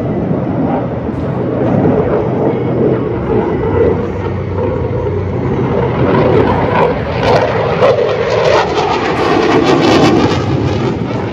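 Fighter jet flying past during an air display: loud, steady jet-engine noise that builds to a peak late on, its pitch sliding down as the jet goes by.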